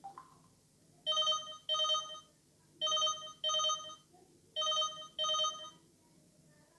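LG KS360 mobile phone ringtone playing three pairs of short ringing tones, each pair about 1.7 seconds after the last, like a classic phone's double ring.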